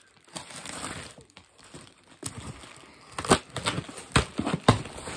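Packing material being crinkled and torn open by hand as a parcel is unwrapped, with several sharp clicks or knocks in the second half.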